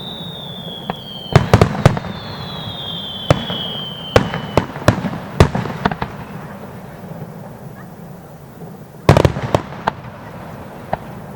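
Aerial fireworks shells bursting: sharp bangs, some in quick clusters, the loudest cluster about nine seconds in. In the first half, a high whistle slides slowly down in pitch twice.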